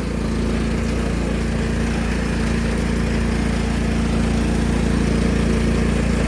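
1999 Cub Cadet HDS 2135 riding mower's engine running steadily at a constant speed, getting a little louder about half a second in.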